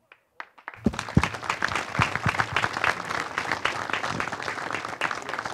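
Audience applauding: a dense spatter of many hands clapping that breaks out about a second in, after a moment of near silence.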